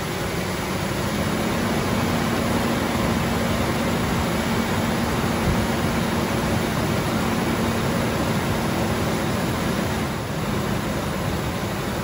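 A 2006 Ford F-150's 4.6-litre V8 idling steadily on a newly fitted throttle body, the part replaced to cure stalling and rough idle. It gives a constant hum that dips briefly near the end.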